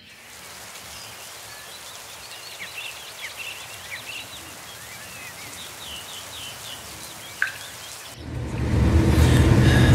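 Birds chirping over a steady soft hiss, with one sharp click about seven seconds in. About eight seconds in, the much louder engine and road noise of the Fiat Ducato campervan on the move takes over, heard from inside the cab.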